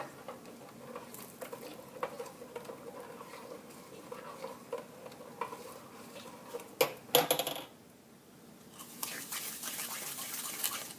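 Metal spoon stirring and scraping in a cooking pan, with light clinks throughout and two sharper taps about seven seconds in, then a steadier scraping over the last two seconds.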